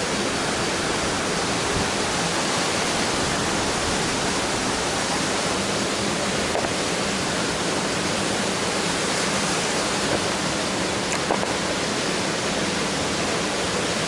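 Steady, even rush of a stream cascading over rock through a gorge, falling from pool to pool.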